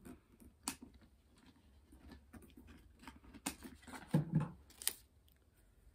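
Scattered light clicks and rustles of a handbag and its tag being handled, with a few sharper clicks and a brief low thud about four seconds in.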